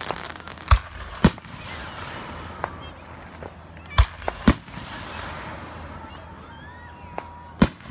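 Fireworks going off: a string of sharp, separate bangs, five of them loud (two about half a second apart near the start, two more about half a second apart midway, and one near the end), with fainter pops between.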